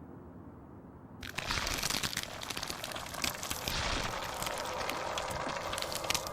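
Dense crackling, crunching noise that starts abruptly about a second in and keeps going steadily.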